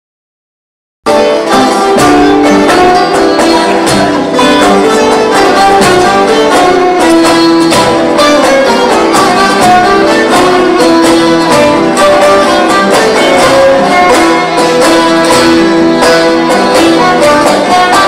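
Instrumental background music, starting abruptly about a second in after silence, with held melodic notes over a steady rhythmic pulse.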